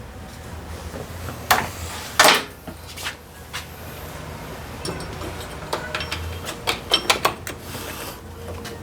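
Small metal parts of a scooter's starter drive clicking and knocking as they are handled, a few separate knocks early and a quicker run of clicks in the second half, over a steady low hum.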